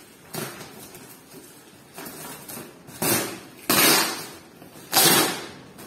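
Packing tape and cardboard being ripped off a large shipping box: several short tearing bursts, the last two the loudest.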